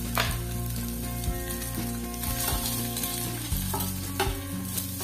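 Whole hard-boiled eggs sizzling in hot oil with turmeric in a nonstick frying pan, with a series of light knocks as a spatula turns them.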